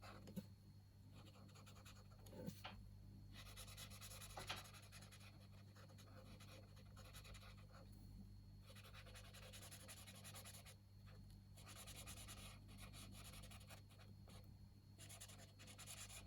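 Faint scratching of a gel pen scribbling on a colouring book page, in repeated strokes a second or two long with short pauses between them, over a low steady hum.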